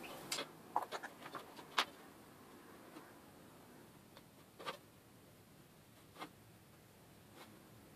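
Light clicks and taps as a steel rule and marker pen are handled on a sheet-aluminium panel while hole positions are marked out. There is a quick run of clicks in the first two seconds, then three single taps spaced out over the rest.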